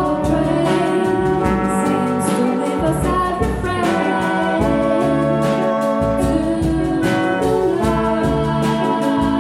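Big band playing a slow jazz number: the brass section, trumpets and trombones, holds chords over a steady beat.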